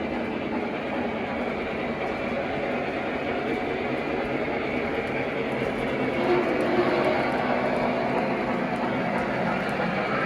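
Model train running on the layout's track: a steady hum of the motor and wheels.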